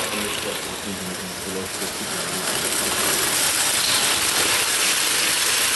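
Vintage 0 gauge tinplate train running past on tinplate track: a steady metallic rattle and clatter of wheels and coaches, growing louder about halfway through as the coaches pass close.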